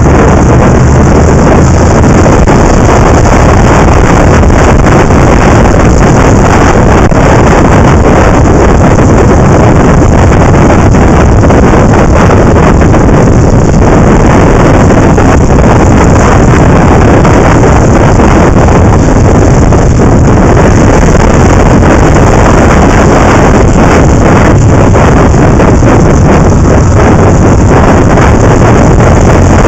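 Loud, steady wind rush over the microphone of a camera mounted on a moving motorcycle, with the motorcycle's engine running beneath it.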